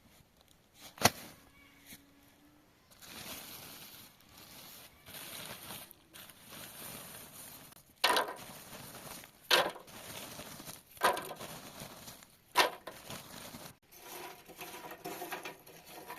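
Cooking and handling noises: a sharp knock about a second in, then rustling and hiss with four sharp knocks about a second and a half apart.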